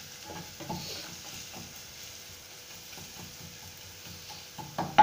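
Chopped onion and chilli frying in oil in a non-stick pot with a faint steady sizzle, while a plastic ladle stirs them with small irregular scrapes and knocks against the pot.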